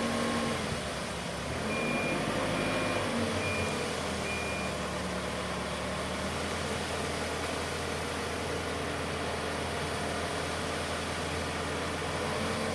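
Engine of a mobile concrete mixer running steadily, with four short, evenly spaced high beeps of a reversing alarm about two seconds in.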